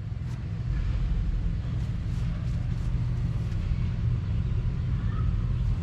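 Can-Am Maverick X3 UTV engine idling steadily, a low even rumble through its newly fitted quiet exhaust.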